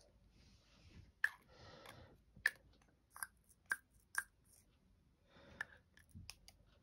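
Light plastic clicks and taps of diamond-painting work: a drill pen picking up resin drills and pressing them onto the canvas, with soft rustling between. The sharpest clicks come at irregular intervals through the middle.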